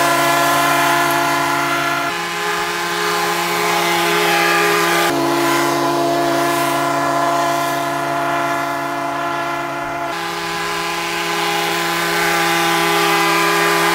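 Background music: sustained organ-like chords held steady, changing to a new chord about every three to five seconds.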